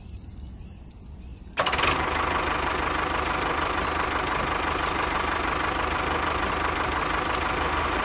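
The motor of a home-made miniature model tractor switches on abruptly about a second and a half in and runs steadily, a dense mechanical noise with a faint steady whine, as the tractor pulls a spring-tine cultivator through sand.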